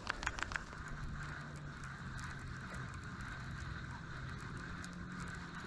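Baitcasting reel cranked in a steady retrieve, its gears whirring, after a few sharp clicks near the start. A faint low hum runs underneath.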